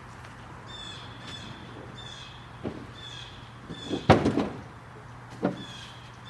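A few sharp knocks and clunks, the loudest about four seconds in, with a short high chirp repeating about every half second.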